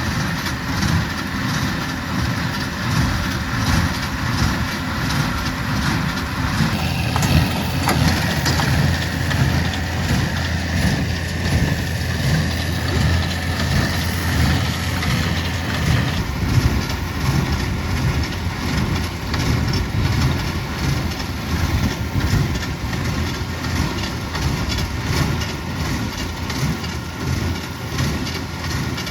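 Farm tractor engine running steadily in the hay field, its sound shifting slightly about seven seconds in and again around sixteen seconds.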